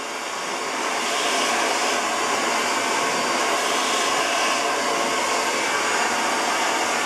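Handheld hair dryer with a concentrator nozzle blowing onto hair: a steady rush of air that gets a little louder over the first second, then holds level.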